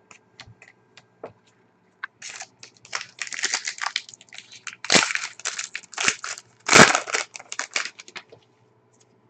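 A trading-card pack wrapper being torn open and crinkled: a few light clicks at first, then about six seconds of dense crackling with two louder crunches.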